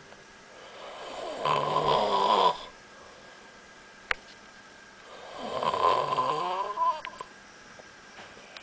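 A person snoring: two long snores about four seconds apart, each building up over a second or two. A sharp click falls between them.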